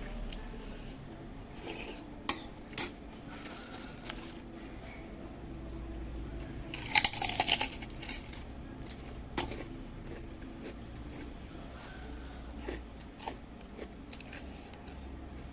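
Spoon and fork clinking against a bowl in scattered short clicks, with a denser cluster of crackly clatter about seven seconds in.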